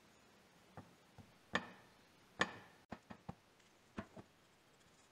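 Light clicks and taps of hard steel pincers being handled on a work surface, about eight in all. The two loudest, about one and a half and two and a half seconds in, ring briefly like struck metal.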